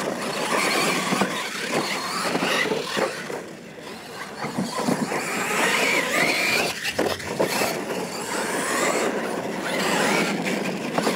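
Radio-controlled Losi monster trucks racing on dirt: a motor whine that rises and falls with the throttle over the hiss of knobby tyres on the track.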